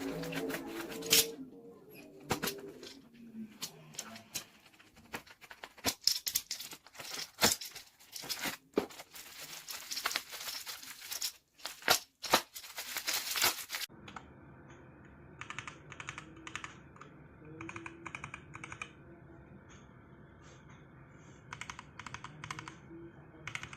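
Gateron mechanical keyboard switches being pressed and released over and over, a rapid run of key clicks. About two-thirds of the way through the clicks turn quieter and come in short bursts, as a different switch is tried.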